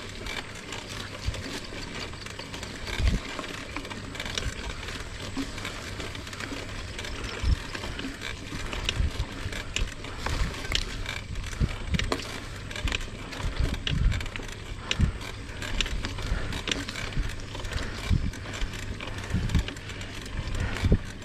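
Mountain bike riding along a grassy dirt singletrack: steady tyre and trail noise with frequent irregular knocks and rattles as the bike goes over bumps.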